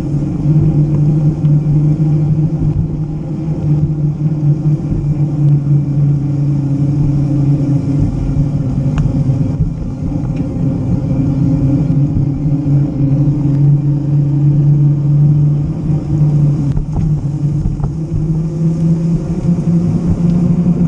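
Bicycle riding noise on pavement: a steady low rumble and hum from the tyres rolling and wind on the camera, with a few faint clicks.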